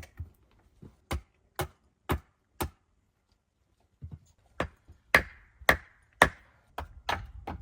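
Wood being chopped with a blade: four sharp strikes about half a second apart, a short pause, then six more at the same pace, the middle ones loudest with a brief ring.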